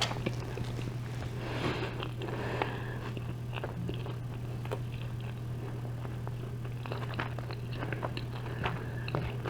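Chewing and small wet mouth clicks from eating, a scatter of soft ticks throughout, over a steady low hum.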